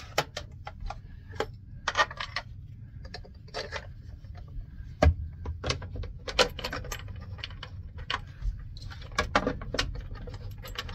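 Scattered metallic clinks and clatter of a wrench, socket and bolt against a Brunswick GSX pinsetter's elevator frame as its upper mounting bolt is worked loose, over a low steady hum.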